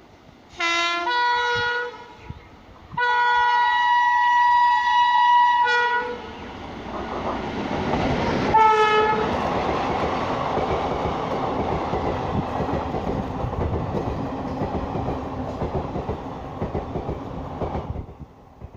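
WAP-7 electric locomotive's twin-tone horn sounding three blasts: a short one, a longer one of about three seconds, then a brief one. The train's passing rumble and wheel clatter build up alongside and run until it cuts off suddenly near the end.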